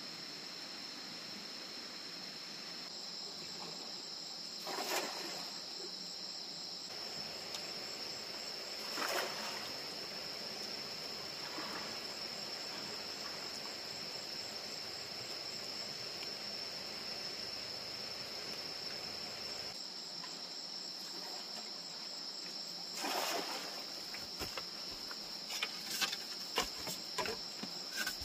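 Crickets chirring steadily in a high, even drone. A few short rustling bursts break in about 5, 9 and 23 seconds in, and a quick run of sharp clicks comes near the end.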